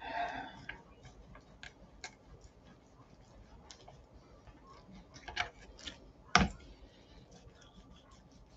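Kitchen knife slicing through raw chicken breast on a wooden chopping board: faint scattered clicks and taps, with one louder knock about six seconds in.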